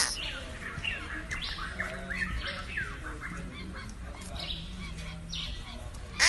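Rapid high-pitched animal chirps and squeaks, several a second, some of them sliding in pitch, with a louder call at the very end.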